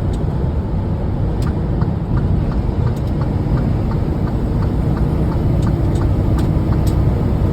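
Inside a semi truck's cab on the highway: a steady low rumble of engine and road noise, with a row of light, evenly spaced ticks and a few sharper clicks.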